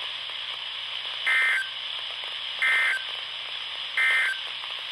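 NOAA Weather Radio SAME digital data bursts, three short screechy end-of-message bursts about 1.3 s apart, marking the end of the weekly test broadcast. They sound over steady radio hiss through a Midland HH50 weather radio.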